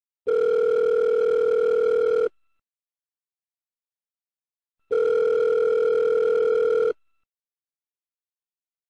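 Phone ringback tone of an outgoing call, signalling that the called phone is ringing: a steady beep held about two seconds, sounding twice with a pause of about two and a half seconds between.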